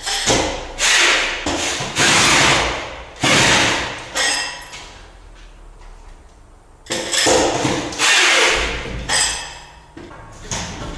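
A powerful drill driving a socket wrench, tightening anchor bolts into a concrete floor slab in short runs of about a second each. There are several runs in a row, a pause of about two seconds near the middle, then more runs.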